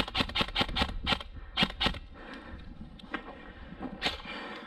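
Quick footsteps crunching on a dry dirt and gravel track for about two seconds, then quieter; a single sharp click near the end.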